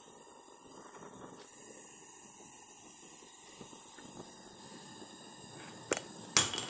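Gas torch flame hissing steadily on a steel rod heated red-hot for bending. Near the end come two short sharp clicks, the second the louder.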